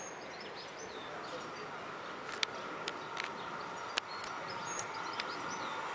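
Small birds chirping over a steady outdoor hum, with a handful of sharp clicks in the middle. Near the end the faint noise of a distant approaching train rises.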